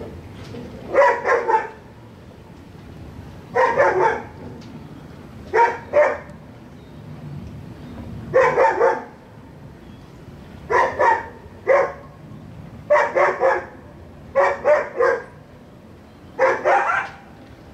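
A dog barking in short bursts of two or three barks, a new burst every two to three seconds.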